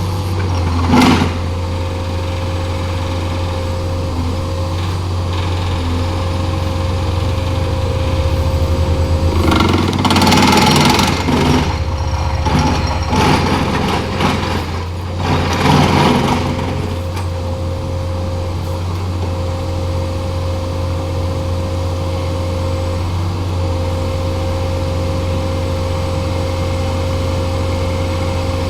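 An engine running steadily with a constant low hum and a steady higher tone, with louder rushing passages about a second in, for a couple of seconds around the middle, and again a little later.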